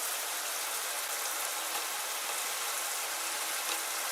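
Handheld high-pressure shower head running, its fine spray giving a steady, even hiss of falling water.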